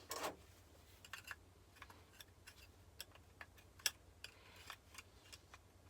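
Scattered light clicks and taps of a tool prodding inside a dismantled car air-conditioning compressor, irregular and quiet, with the sharpest tap about four seconds in.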